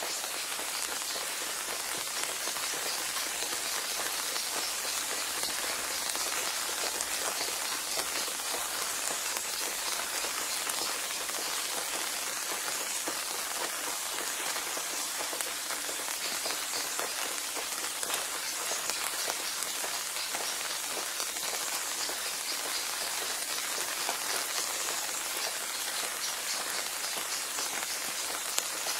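Steady rain falling, an even patter of many drops with no change in strength.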